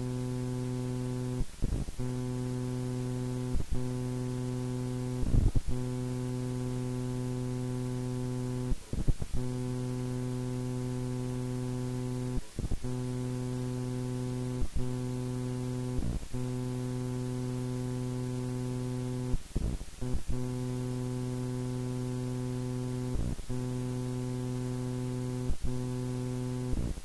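Steady electrical buzz with a stack of overtones, an interference noise leaking into an Edirol R-4 Pro recorder's recordings, over a layer of hiss. Every second or few seconds it is broken by a short crackle as the buzz cuts out for a moment.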